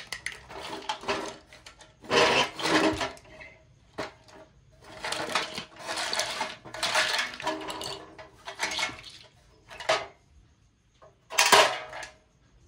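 Small plastic toys clattering as they tumble in and out of the tipping bed of a wooden toy dump truck, with knocks of the wooden bed. Several bursts of clatter come and go, the loudest near the end.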